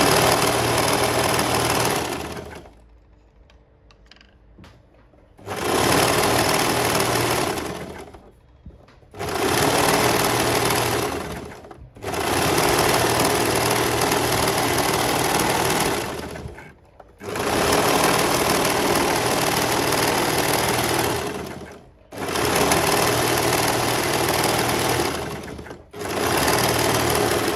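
Overlocker (serger) stitching and trimming a fabric edge, run in about seven bursts of a few seconds each with short stops between, the longest pause a few seconds in.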